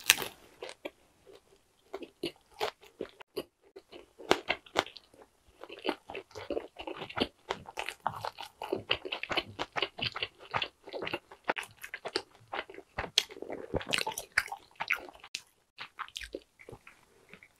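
A person chewing a mouthful of thick pan-dough pizza crust: a sharp bite right at the start, then a long run of crunching and wet chewing.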